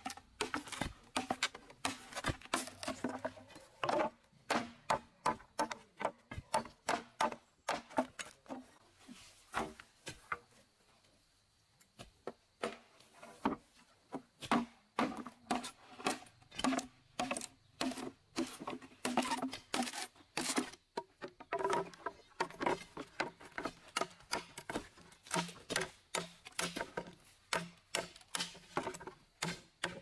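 A machete chopping and splitting dry bamboo poles: a rapid run of sharp, hollow woody knocks, several a second. There is a pause of about two seconds a third of the way in.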